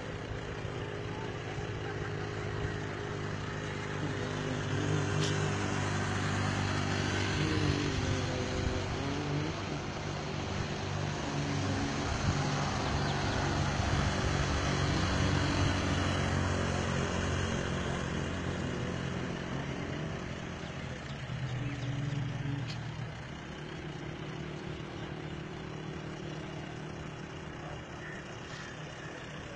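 A motor vehicle's engine running steadily over road noise, growing louder toward the middle and easing off after.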